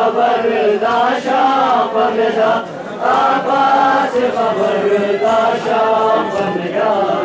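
Men's voices chanting a devotional lament together, a melodic chant held without pause.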